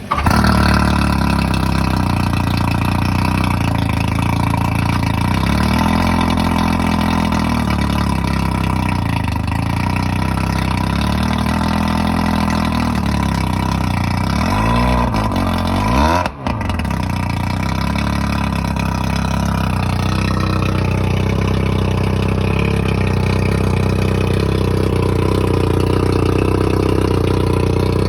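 1995 Mercury 115 two-stroke outboard motor running, jumping up in level at the start, its pitch swinging up and down a few times as it is revved. A brief sudden drop about sixteen seconds in, then it settles into a steady run.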